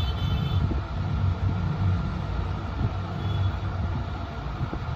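Low, uneven background rumble with a faint steady hum running through it.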